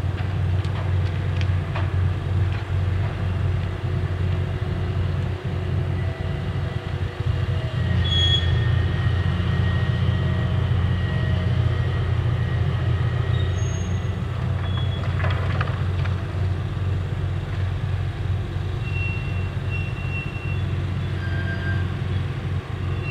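Diesel engine and winch of a clamshell-grab crane on a crane ship running with a steady low drone, which rises in level about eight seconds in while the grab bucket is worked. Faint high squeaks and a few clicks sound over it.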